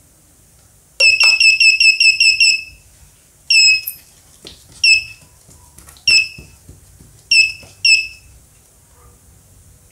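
The Arduino math-practice machine's buzzer plays its correct-answer signal. A quick run of about ten short high beeps comes first, then a longer beep and four single beeps roughly a second apart, each ending in a slight downward slide.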